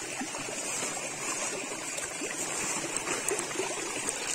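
A small stream trickling steadily over a rocky, leaf-strewn bed, with a few faint clicks.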